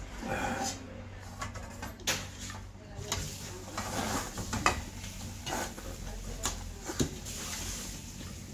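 Eating and serving noises: a metal ladle knocking and scraping in a metal ramen pot and chopsticks against a bowl, with three sharp clinks, the loudest about halfway through.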